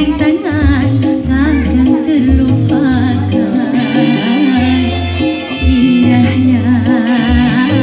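Woman singing a dangdut song into a handheld microphone over a dangdut backing track, her held notes wavering with vibrato above a steady bass beat.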